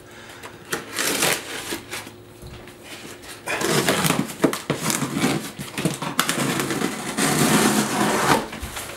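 Cardboard shipping box being opened by hand: a few scattered taps and scrapes, then about five seconds of continuous scraping and tearing as the packing tape along the top seam is cut and the flaps are pulled apart.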